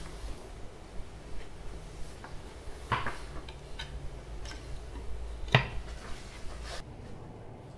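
Irregular wooden clicks and knocks from a wooden chest and a small wooden box being handled, with cloth shifted about; two louder knocks come about three and five and a half seconds in, over a low steady room hum.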